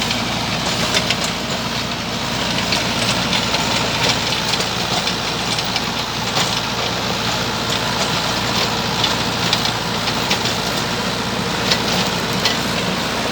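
Mahindra 585 DI XP tractor's four-cylinder diesel engine running steadily under load while pulling a rotavator through the field, with scattered sharp clicks and clatter over the engine.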